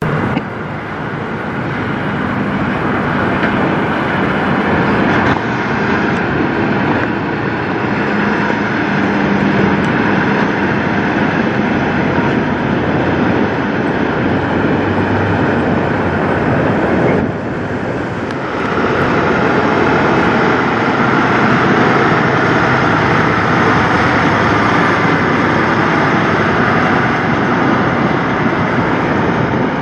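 Diesel engines of semi-trucks running as tractor-trailers pull past at low speed, with tyre and road noise. The sound drops away briefly past the halfway mark, then comes back.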